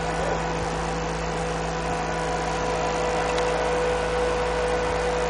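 Steady machine hum with a constant mid-pitched tone over an even noise, unchanging throughout.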